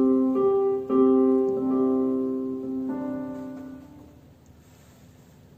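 Upright piano playing a short phrase of a few chords, one about every second, the last left to ring and fade out about four seconds in.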